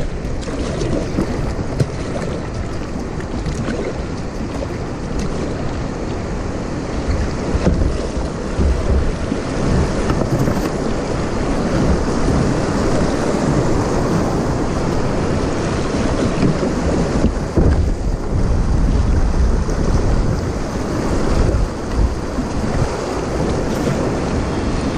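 Shallow river rapids rushing and splashing around a kayak as it is paddled through, with a deep wind rumble on the microphone.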